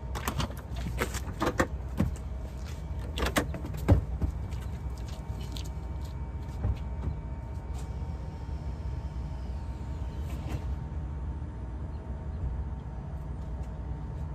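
Clicks and knocks of a car's rear seatbacks and cargo cover being handled and folded down, a cluster in the first few seconds and another knock about seven seconds in, over a steady low hum.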